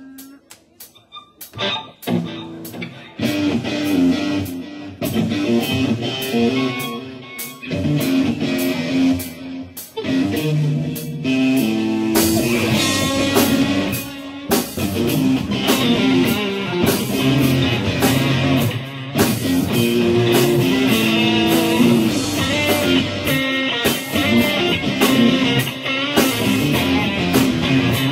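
Live rock band playing: a Stratocaster-style electric guitar over a drum kit. It starts sparse with a few drum hits and comes in fully after about three seconds, growing fuller from about twelve seconds in.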